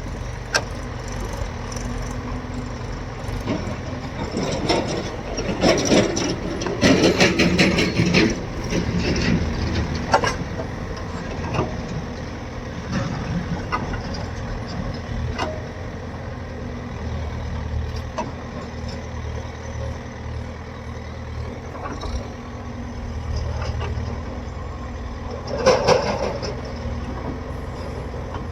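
Diesel engine of a JCB 3DX backhoe loader running steadily under work, with a stretch of heavy clanking and rattling about four to nine seconds in and another short loud clatter near the end.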